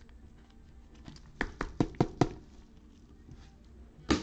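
Gloved hands handling trading cards and a clear plastic card holder: a quick run of five sharp taps about a second and a half in, then one more near the end.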